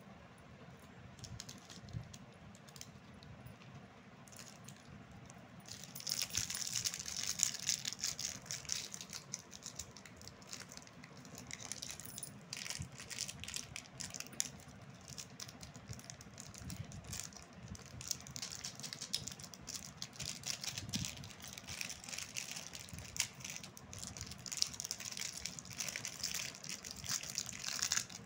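Plastic candy wrappers and packets crinkling and rustling as they are handled, with a lollipop wrapper being twisted open. Quieter for the first few seconds, then dense crackling for the rest.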